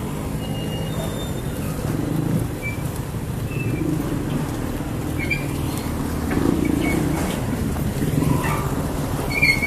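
Engines idling with a steady low hum, with a few short high chirps over it.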